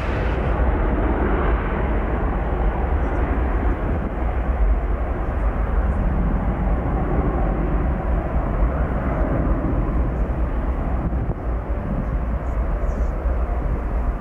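Twin-engine jet airliner at takeoff thrust on the runway: a loud, steady roar with a deep rumble underneath.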